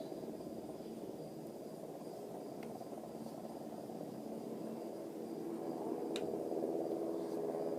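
Steady insect chirring, typical of crickets, with a low steady hum beneath it and a single sharp click about six seconds in.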